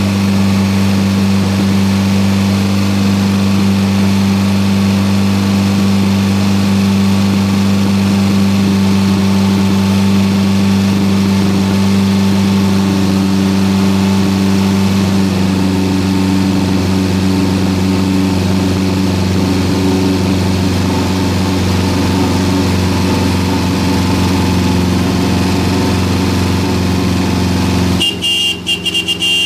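1974 Toyota Corolla's four-cylinder engine running steadily on its carburetor, brought back to life after some 25 years standing unused. About two seconds before the end it cuts off suddenly, and a short high-pitched buzzing tone follows.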